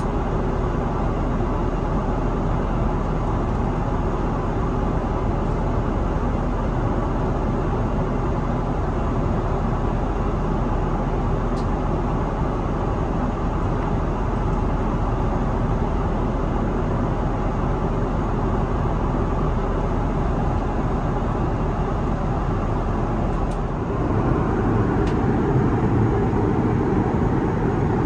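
Steady in-flight cabin noise of an Airbus A330-900neo: the even rush of airflow and engine drone heard from the seat. It turns louder and deeper near the end.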